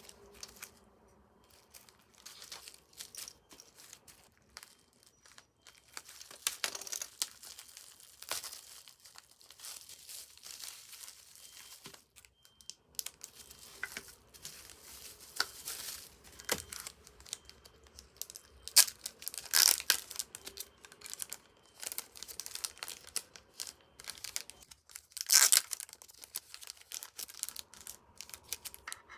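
Packaging being crinkled and torn open by hand to unbox merchandise: irregular crinkling and crackling, with a few louder rips, the loudest near the end.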